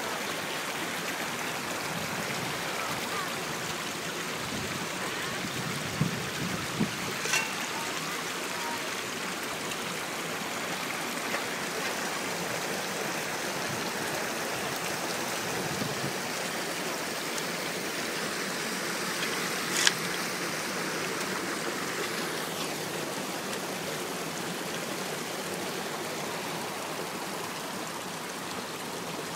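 Shallow creek water rushing steadily through and around two Keene mini sluice boxes. A few brief knocks come about six to seven seconds in, and one sharp click about twenty seconds in.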